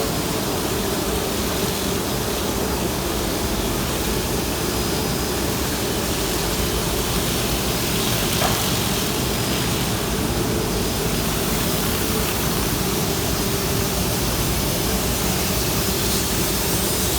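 MSS M7-1300 brush relief-sanding machine running, its rotating abrasive brush heads sanding wooden parts: a constant dense whir over a steady hum.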